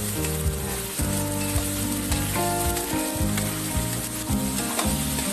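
Chayote and carrot strips with tofu sizzling in hot oil in a wok while they are stirred and turned with a wooden spatula. Steady held tones that shift in pitch every half second or so run underneath.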